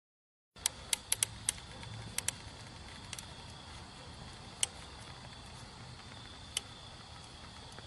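Molten aluminium being poured into an ant mound: sharp, scattered pops and crackles, most of them in the first two seconds, over a steady low hum and a high hiss. The sound starts about half a second in.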